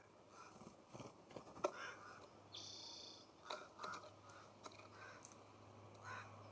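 Faint sounds of birds at a feeder: scattered short chirps and sharp clicks, with a brief buzzy high note about two and a half seconds in and a low steady hum from then on.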